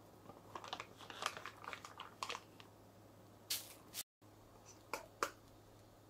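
A thin plastic bag rustling and crinkling as marinated chicken pieces are put into it one after another. Near the end come two short, sharp clicks.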